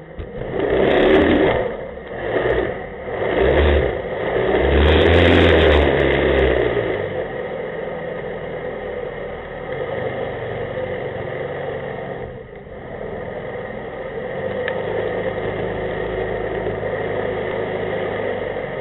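An 11-foot jet boat's engine revving in four short surges over the first six seconds or so, then running steadily at an even, lower pitch.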